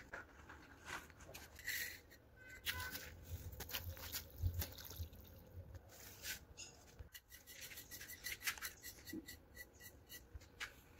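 Faint scattered clicks, scrapes and taps of hand work on granite slabs and wet cement mortar, with a few brief squeaks.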